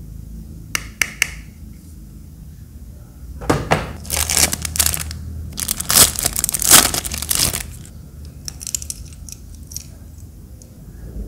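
Clear plastic bag crinkling and rustling as an acrylic keychain is pulled out of it, loudest around the middle. A few sharp clicks come about a second in, and faint light ticks follow near the end.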